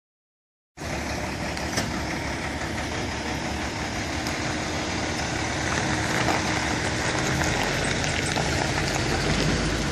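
A vehicle engine running steadily, with a dense rumbling noise that starts abruptly about a second in.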